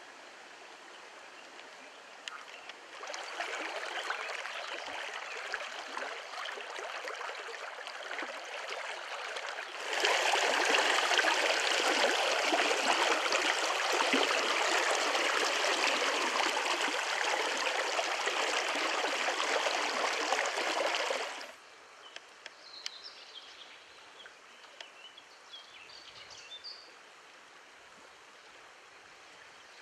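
Fast, shallow river water rushing over a stony riffle: a steady watery rush. It grows louder about three seconds in, louder again about ten seconds in, and drops abruptly to a fainter flow a little after twenty seconds.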